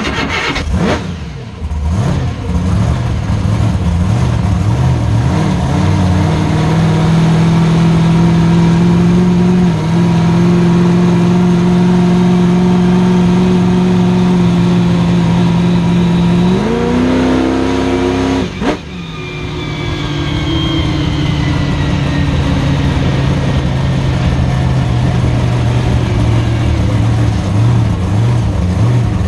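Monster truck engine heard from inside the cab. It revs up and holds a steady high pitch for about ten seconds, climbs higher, then cuts out sharply for a moment about two-thirds of the way through. After that it runs at lower, uneven revs.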